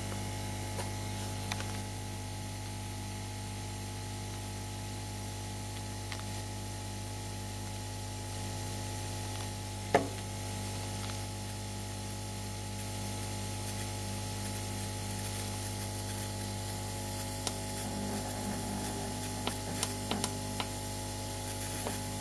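Aoyue 968A+ rework station's hot-air section running, with a steady hum as its heater warms up towards the set temperature. A single sharp click about halfway through.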